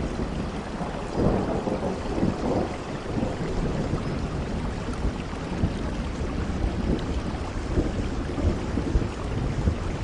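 Steady rain with the low rumble of thunder, swelling a little about one to three seconds in.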